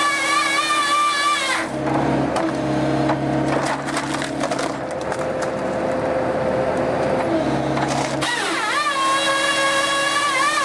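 Wood cracking and splintering for about six seconds as a RaMeC excavator-mounted firewood processor head splits a log. Before and after it comes the machine's steady high whine, which dips and rises again about eight seconds in.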